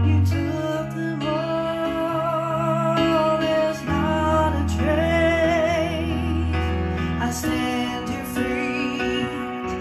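A woman singing with vibrato on long held notes, accompanied by chords on an electronic keyboard.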